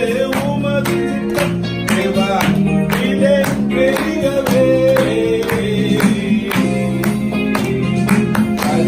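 Group singing a Christian song with steady hand clapping in time, over a held chordal instrumental accompaniment.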